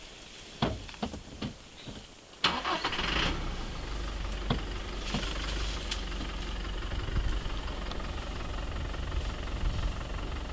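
A few sharp clicks, then a car engine starts about two and a half seconds in and settles into a steady idle.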